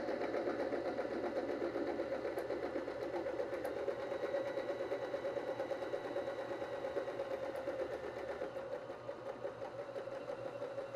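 BabyLock Zest sewing machine running steadily at speed, stitching the third step of a four-step buttonhole: the second long side, sewn away from the operator back toward the buttonhole's start.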